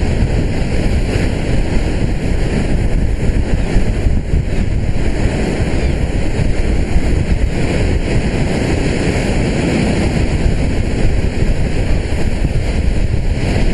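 Storm wind buffeting the microphone, mixed with heavy surf breaking against the shore in a rough sea.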